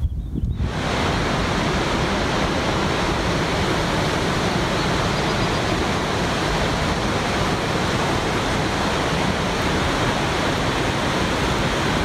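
Steady rush of a large waterfall: one constant, even sound of falling water that sets in about half a second in, after a little wind on the microphone.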